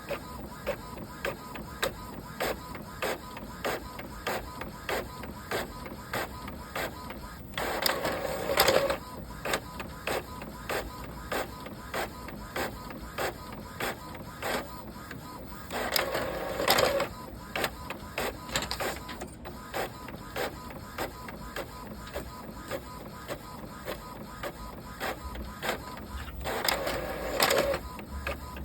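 Printer running: a steady run of short mechanical clicks, about two to three a second, broken three times by a louder whirring burst about a second long, roughly every nine seconds.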